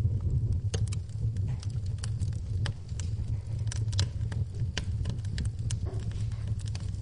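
Wood fire burning in a fireplace: crackling and popping, with sharp, irregular pops over a steady low rumble of the flames.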